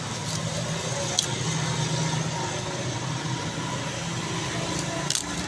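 A steady low engine hum runs throughout. Two sharp taps of the fish-cutting blade on the wooden chopping block come through, one about a second in and one near the end.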